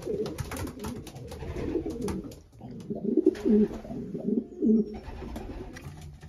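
Racing pigeons cooing in a loft: several low, throaty coos overlapping, busiest in the second half, with scattered light clicks.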